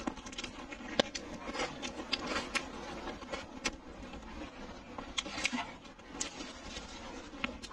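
Close-miked chewing of braised pork rib, with irregular wet mouth clicks and smacks.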